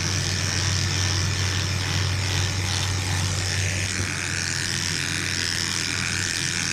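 Electric dog grooming clippers running steadily while trimming a dog's coat, a constant electric hum.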